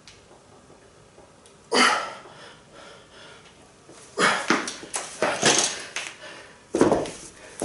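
Forceful exhales and grunts of a man straining through the last reps of a heavy seated dumbbell shoulder press, one loud burst of breath about two seconds in and a quick run of them near the middle. Near the end a heavy thump as the hex dumbbells are set down on the floor, followed by hard breathing.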